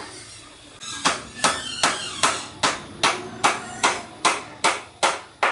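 A steady run of sharp strikes from a hand tool, about two and a half a second, starting about a second in after a short pause.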